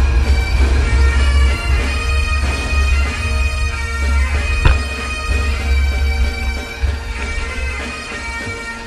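Bagpipe music with steady drones under the chanter's melody, over a low rumble; it grows quieter towards the end.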